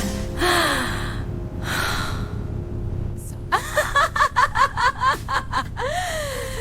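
Young women taking sharp, breathy gasps, then a burst of rapid giggling laughter about three and a half seconds in.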